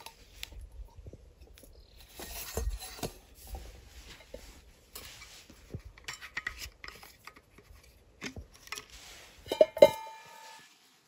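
Camp cookware and utensils being handled: irregular knocks, scrapes and clinks of metal, then two sharp metal clanks about a second before the end, the second leaving a short ring.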